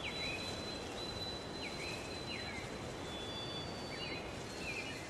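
Outdoor mountain ambience: a steady hiss with a thin high tone, and birds giving short falling chirps about five times.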